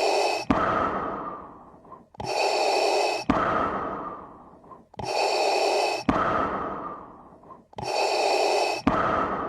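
Darth Vader's mechanical mask-breathing sound effect, a breath recorded through a scuba regulator, repeating about every 2.8 seconds. Each breath is a steady hiss that cuts off sharply, then a longer hiss that fades away. Three full breaths and the start of a fourth.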